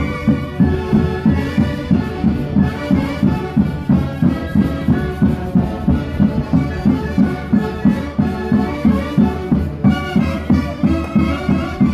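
Andean festival band playing a Santiago dance tune, wind instruments carrying the melody over a steady drum beat of about three beats a second.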